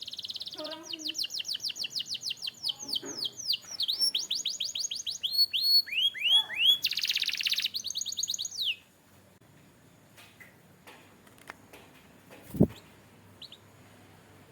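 Domestic canary singing a fast song of rapidly repeated trilled notes and down-slurred whistles, with a buzzy rolled phrase near its end. The song stops about nine seconds in, followed by a few faint clicks and a single sharp thump.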